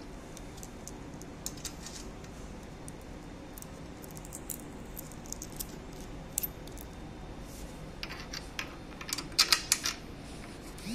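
Small metal clinks and clicks of bolts and washers being handled and fitted by hand into a steel handle tube, with a quick run of sharper, louder clinks near the end.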